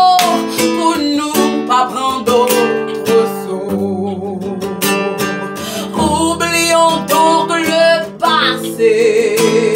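A woman singing long, wavering held notes without clear words over a strummed acoustic guitar accompaniment.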